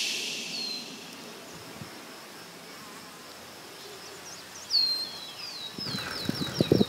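A songbird sings: a single short downward-sliding whistle, then a louder one followed by a quick run of about ten repeated downward-sliding notes. In the last second, sharp knocks and rattles come in, from a bicycle ridden over a path.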